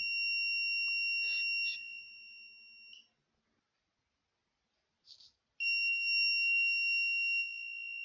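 Arduino-driven alarm buzzer sounding a steady high-pitched tone in two long beeps of about three seconds each, with a pause of about two and a half seconds between them. The PIR motion sensor has detected movement and triggered the theft alarm.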